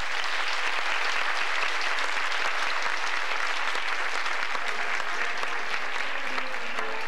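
Audience applauding after a song ends on stage, a dense steady clapping; near the end, music comes back in under the applause.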